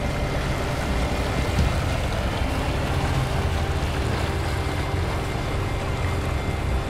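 Outboard motor running steadily as the boat moves along, with the rush of water from its wake.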